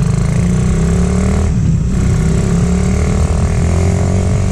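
Suzuki Raider 150 single-cylinder engine, bored up to 167cc with a JVT 66 mm cylinder kit, pulling under acceleration. Its pitch climbs, drops briefly with an upshift about one and a half seconds in, then climbs again more slowly.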